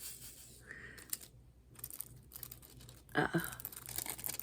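Paper being handled: faint rustling with scattered light clicks and taps, and a brief murmured vocal sound about three seconds in.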